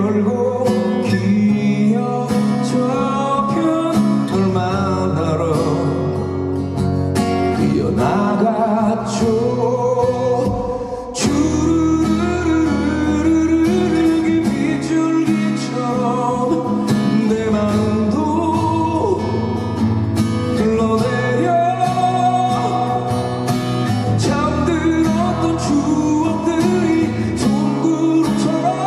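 Live acoustic performance: a male voice singing a slow song over a strummed steel-string acoustic guitar.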